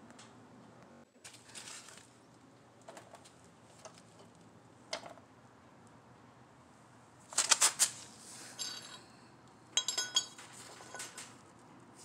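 Metal clinks and clanks from a Chevrolet Tracker's removed steel brake and clutch pedal assembly being handled and its pedals worked for inspection. There are scattered light clicks, then two louder clusters of clinks about seven and ten seconds in, each followed by a brief metallic ring.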